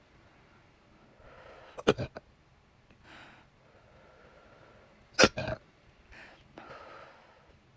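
A person hiccuping twice, about three and a half seconds apart. Each hiccup is a sharp catch followed at once by a brief second sound.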